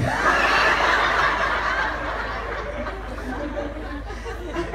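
Audience laughing together, loudest in the first couple of seconds and then dying away.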